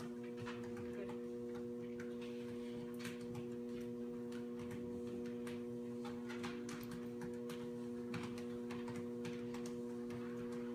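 Treadmill motor humming steadily while a dog walks on the moving belt, her paws and nails tapping in an uneven patter of a few steps a second.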